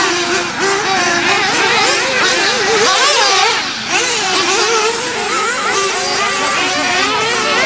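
1/8-scale RC off-road buggy running laps, its motor revving up and down over and over through the corners and straights.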